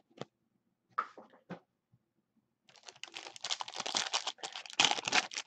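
A foil trading-card pack being torn open and its wrapper crinkled: a few light clicks, then a dense crackling starting about three seconds in and growing loudest near the end.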